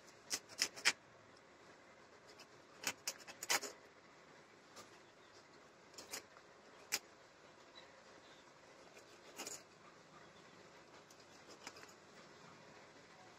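Knife blade scraping and cutting a small tilapia by hand: short, sharp scrapes in little clusters, three in the first second, a quick run about three seconds in, then single strokes spaced a few seconds apart.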